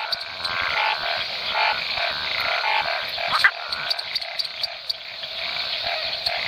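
Map tree frog (Hypsiboas geographicus) calling: short croaking notes repeated at irregular intervals, one louder note about three and a half seconds in. A steady high hiss and fast faint ticking run underneath.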